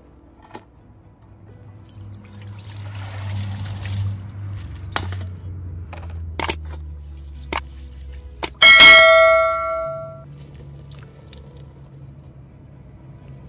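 Water pouring into a metal pot of rice, then a few sharp clicks and a loud bell ding that rings and fades over about a second and a half. The clicks and ding are the sound effects of a like-and-subscribe button animation.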